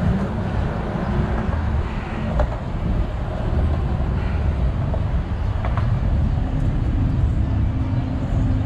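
Steady city road traffic with a heavy low rumble.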